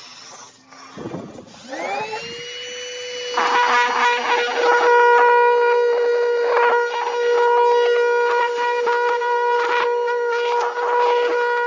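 Hoover Power Scrub Elite carpet cleaner's motor spinning up about a second in and settling into a steady high whine. From about three and a half seconds in it gets louder, with a rough, uneven noise over the whine.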